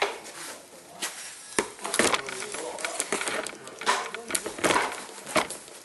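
Knocks and clatter of an old metal bell being lifted off and set back down on a wooden tabletop, with several sharp knocks close together in the second half.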